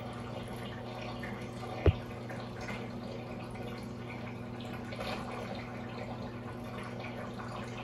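Aquarium water trickling and dripping over a steady low hum. A single sharp thump comes about two seconds in.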